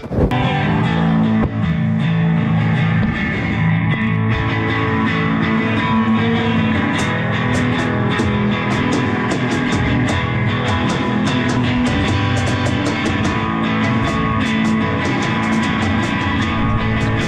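Rock band playing: guitars over bass and drums, with the drum and cymbal hits coming through more clearly from about six seconds in.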